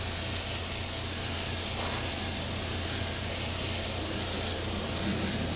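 Paint spraying: a steady, unbroken hiss of silver paint being sprayed on as a first dusting coat, over a steady low hum.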